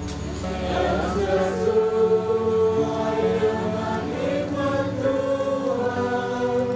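A congregation singing an Indonesian hymn together in long, held notes.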